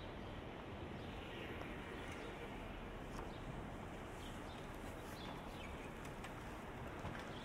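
City street ambience: a steady low hum of traffic and city noise, with faint short bird chirps now and then.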